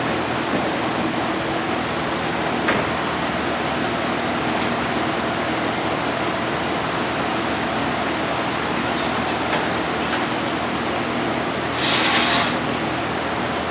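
Steady mechanical hum and hiss, with a single click about three seconds in and two quick bursts of hiss near the end.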